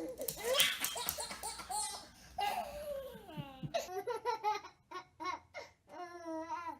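A baby laughing in a string of short, rhythmic bursts, with a longer held squeal near the end.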